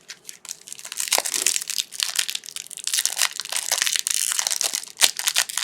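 Trading card pack wrapper crinkling and crackling as it is handled and torn open, with a dense run of sharp crackles.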